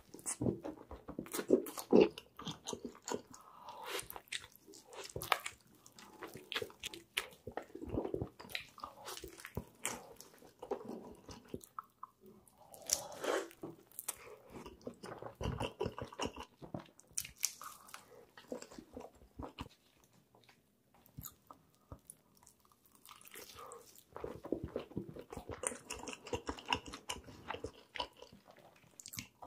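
Close-miked biting and chewing of crispy fried chicken: irregular crunches and crackles of the breading, with a short lull about two-thirds of the way through.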